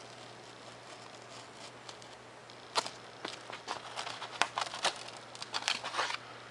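X-Acto knife cutting through a paper plan and 3 mm Depron foam sheet: faint scratching at first, then from about three seconds in a quick run of sharp crackles and scrapes as the cut is finished and the foam sheet is handled.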